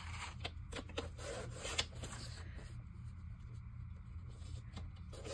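Glossy magazine page rubbing and sliding on a paper trimmer as it is lined up by hand, with several light clicks and taps.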